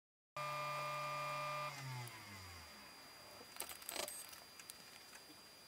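A small electric motor hums steadily, then slows and winds down, falling in pitch over about a second. Faint clicks and rustling of wires being handled follow.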